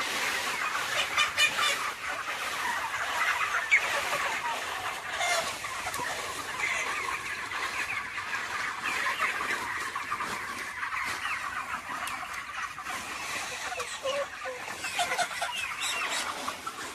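A large flock of farmed chickens calling all at once: a steady din of many short, overlapping chirping calls.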